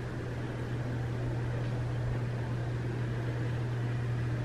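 Steady low mechanical hum under an even hiss, with no distinct events.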